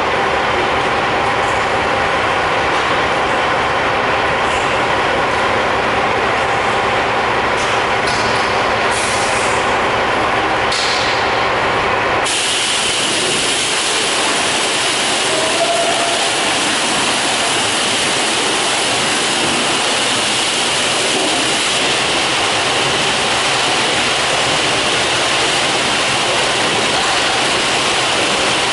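Steady hiss of high-pressure water spray in a truck wash bay over a steady mechanical hum. About twelve seconds in, the sound switches abruptly to a brighter, even hiss of spray and the low hum drops away.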